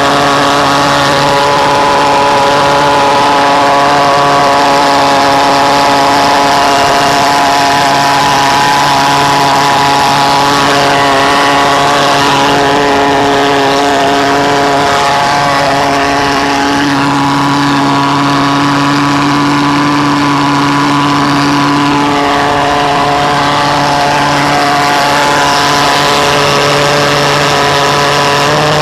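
Home-built reed-valve pulse jet engine running continuously with a loud, steady buzzing drone. Its pitch shifts slightly a couple of times.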